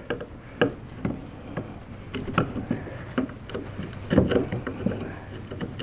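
A small chisel scraping dried glue squeeze-out off the face of a hardwood cutting board. It makes a run of short, irregular scrapes and ticks as the blade chips off the hardened glue chunks.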